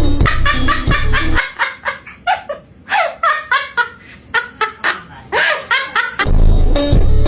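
A bird giving a fast string of short, laugh-like calls, each dropping in pitch, for about five seconds. Background music with a heavy beat plays under the start, cuts out, and comes back near the end.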